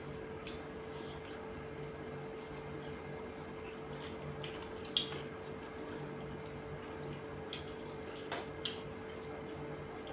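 Eating sounds of rice and curry eaten by hand: scattered wet smacks and short clicks from chewing and from fingers mixing rice with curry, the sharpest about five seconds in. A steady hum runs underneath.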